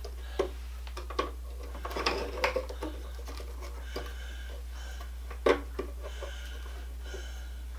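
Scattered light clicks and knocks from hand work on an old light switch and its wiring in a wall box, with a cluster of taps about two seconds in and a sharper knock about five and a half seconds in.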